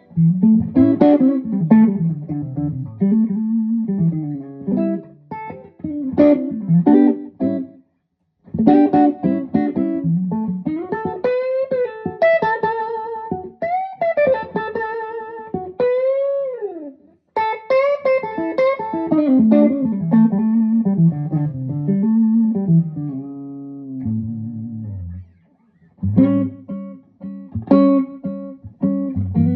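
1960 Gibson ES-345 electric guitar played through a Marshall JTM45/100 Super 100 valve amplifier: single-note lead lines with string bends, pausing briefly about eight and seventeen seconds in, and chords near the end.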